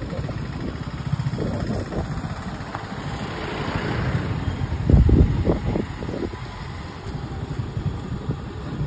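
Motorcycle engine running as the bike rides along a street, a steady low pulsing sound that swells briefly about five seconds in.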